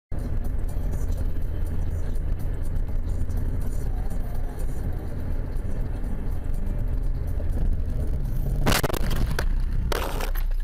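Steady low rumble of a car's engine and road noise heard from inside the cabin. About nine seconds in comes a sudden loud bang, then several more knocks and scrapes: a collision.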